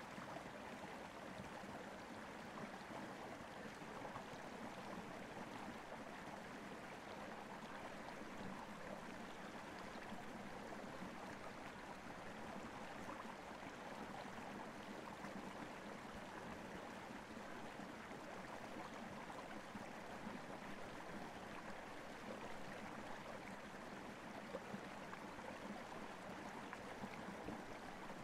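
Steady, even rushing noise like running water.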